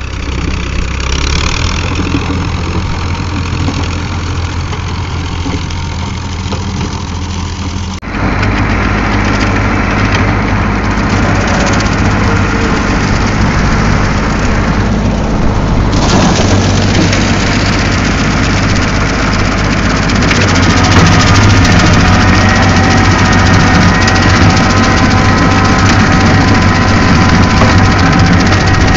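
Farm tractor engine running steadily under load while it drives a rear rotary mower cutting tall grass. The sound changes abruptly twice, about 8 and 16 seconds in.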